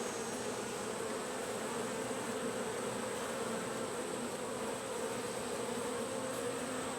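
Honey bees buzzing steadily, a dense even hum from the colony on the frames of an open nucleus hive.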